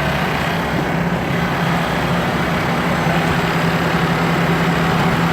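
Toyota FJ40 Land Cruiser's engine running steadily through a rock obstacle, an even drone.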